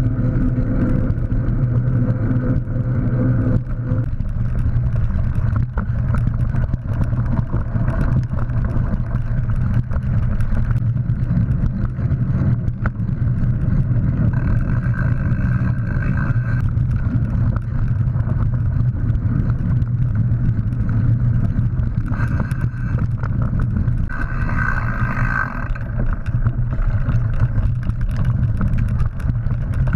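Mountain bike riding over dirt track and forest singletrack: a steady low rumble of tyres and wind, with many small rattles and knocks as the bike jolts over bumps. A brief higher whirring rises over it now and then.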